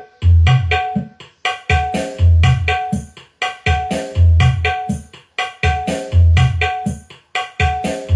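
Drum-led music with deep bass hits in a steady rhythm, played from a phone through a dbx 224XL four-way crossover (channel B), a power amplifier and speakers with no mixer or equaliser.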